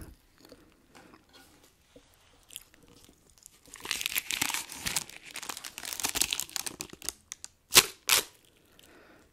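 Crackling and crinkling of a paper party blower handled at the lips close to the microphone, then two short, sharp blows into it just before 8 seconds in as it unrolls.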